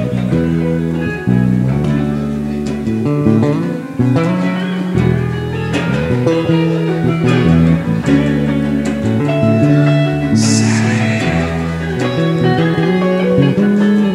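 Live band playing an instrumental stretch on guitars, with a bass line moving underneath.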